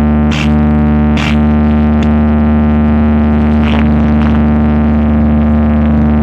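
Loud electronic sound-check music: a held synthesizer drone over a deep, steady bass note. Sharp noisy hits come twice in the first second and a half, and two softer ones come around the middle.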